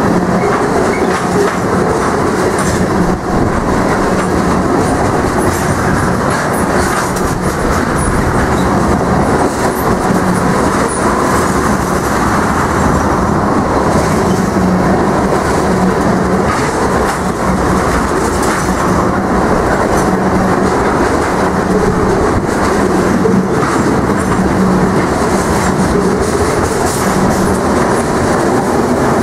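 Oil train tank cars rolling past close by: a loud, steady rumble of steel wheels on rail, with a clickety-clack over the rail joints.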